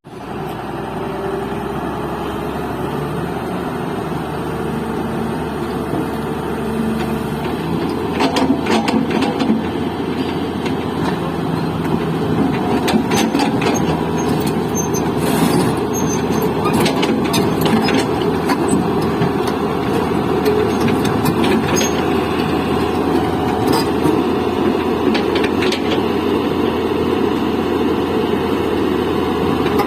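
Heavy diesel engine running steadily, growing louder over the first several seconds, with scattered metallic clanks and knocks from about eight seconds in.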